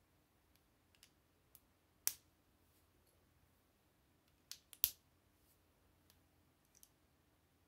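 Plastic Lego bricks clicking as they are snapped together by hand: scattered sharp clicks, one loud one about two seconds in and a quick run of three near the middle, the last of them the loudest.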